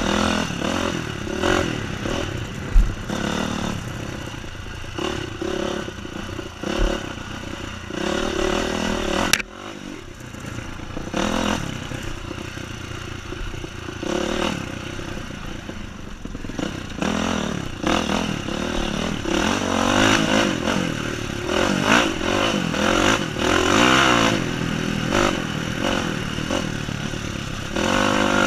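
Honda CRF four-stroke dirt bike engine heard close up from on board, revving up and down hard again and again as the rider works the throttle, with the bike clattering and rattling over rough ground. About a third of the way through the sound drops away sharply for a moment before the revving builds again.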